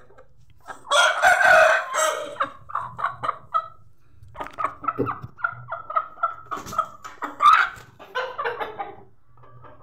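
Bangkok game chickens calling: a long, loud crow about a second in, then runs of quick clucks, four to five a second, rising to a louder drawn-out squawk about seven and a half seconds in before a few more clucks.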